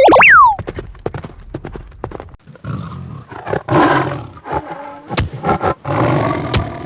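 A loud cartoon whistle sliding up and down in pitch, then a run of sharp clicks, then repeated rough animal roars from about two and a half seconds in.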